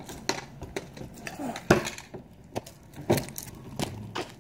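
A series of irregular sharp knocks and clacks on a hard surface, the two loudest a little under two seconds in and about three seconds in.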